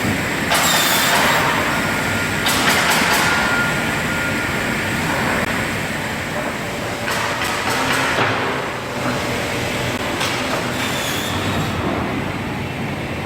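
Semiautomatic crosscut saw with a 600 mm blade making about four cuts through timber, each about a second long, over the steady running noise of the machine.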